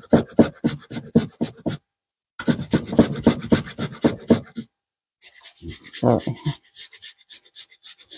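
Fresh ginger being grated on a fine metal rasp grater: quick rhythmic scraping strokes, about five a second, in three runs with two short pauses.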